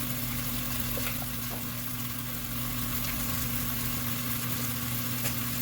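Chicken frying in a pan, a soft even sizzle, over a steady low electrical hum, with a few faint light ticks.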